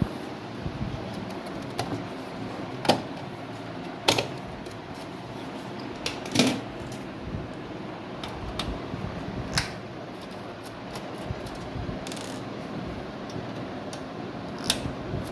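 Scattered sharp clicks and knocks of a desktop computer's case and parts being handled, a few seconds apart, over a steady background hiss.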